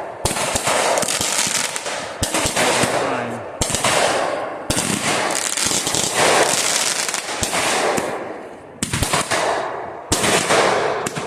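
Firecrackers going off in rapid crackling volleys, several long runs of fast bangs broken by short pauses, sounding like machine-gun fire.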